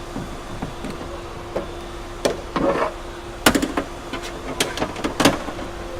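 Scattered clicks and knocks of metal parts and hand tools being worked inside a car door while a door lock assembly is fitted. They come sparsely at first and grow thicker and louder over the last few seconds, over a steady hum.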